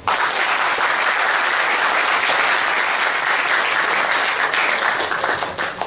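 Audience applauding, starting suddenly and holding steady, then thinning out near the end.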